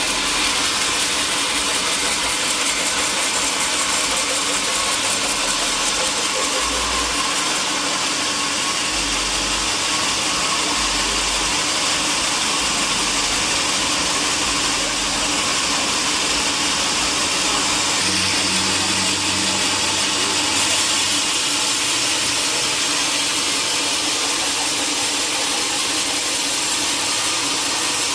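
Sawmill machinery running steadily: an even engine-like drone with a strong hiss.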